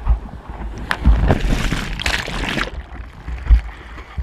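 Whitewater from broken surf rushing and sloshing around a camera at the water's surface, with a louder rush of foam from about a second in, lasting a second and a half. A few low thumps come through underneath.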